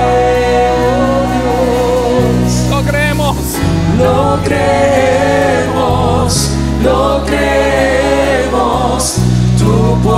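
Church worship team singing a slow gospel song in several voices over sustained instrumental chords that change every couple of seconds.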